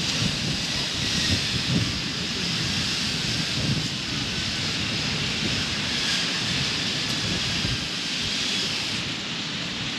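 Wind buffeting the microphone at the seashore: a steady rushing hiss with a gusty low rumble, over the wash of small waves breaking on the shore.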